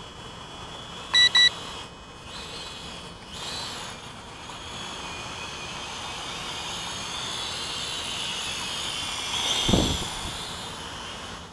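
Tarantula Spider quadcopter's motors and propellers whining, growing louder as it flies in and passes close overhead about ten seconds in, where its propwash buffets the microphone. Two short, loud electronic beeps sound about a second in.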